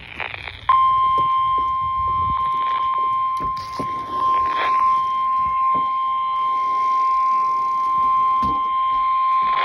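Emergency alert attention tone, a single steady high beep, that starts about a second in and cuts off abruptly near the end. It is the alarm that announces a severe thunderstorm warning, which is read out right after it.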